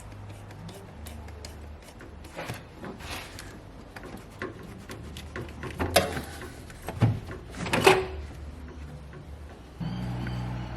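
Several knocks and clunks of parts being handled, loudest about six and eight seconds in, over a low steady hum.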